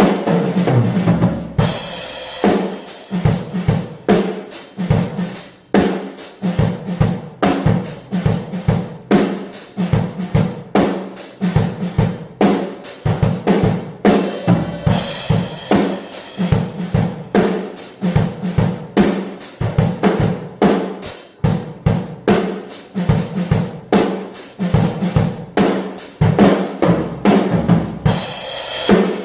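Acoustic drum kit played unmixed and raw: a steady groove of bass drum, snare with rimshots, and hi-hat, with crash cymbals splashing in about two seconds in, around the middle, and again near the end.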